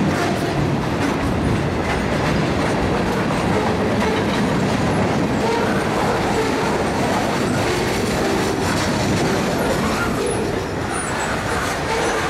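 Freight cars rolling past close by: a steady rumble and clatter of steel wheels on the rails, with a faint squeal from the wheels now and then.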